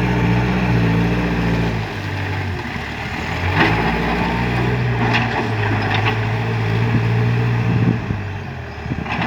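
Backhoe engine working under load: its note drops about two seconds in and picks up again a little past the middle, with a few short knocks as the machine digs.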